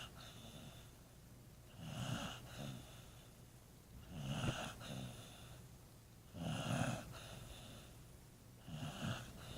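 Dog snoring, four loud snores about two and a half seconds apart.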